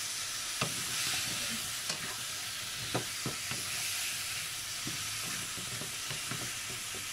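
Chicken, squash and sweet potato chunks sizzling in a non-stick wok while a wooden spatula stirs them, with irregular knocks and scrapes of the spatula against the pan.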